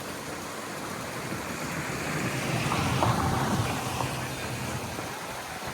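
Outdoor wind and water noise, swelling and easing again about two to four seconds in.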